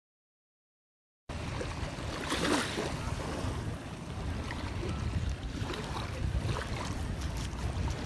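Dead silence, then about a second in, shallow waves washing up a sandy beach, with wind rumbling on the microphone.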